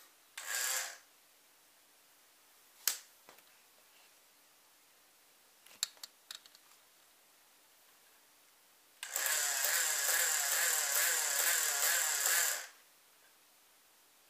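Small electric motor of a toy RC fire truck whirring: a brief whir near the start, a few sharp clicks, then a longer steady whir of about three and a half seconds in the second half, the loudest sound.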